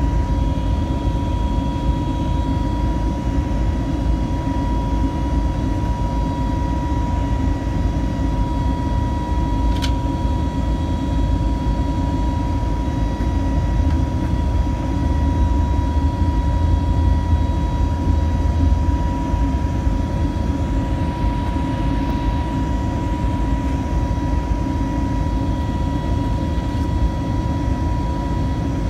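Airbus A320neo jet engines and airflow heard inside the cabin during the climb after takeoff: a steady low rumble with a thin, steady high whine over it. A single faint click about ten seconds in.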